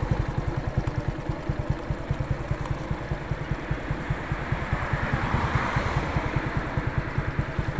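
Small motorcycle engine running at low speed with a rapid, even putter. A rushing hiss swells briefly about five seconds in.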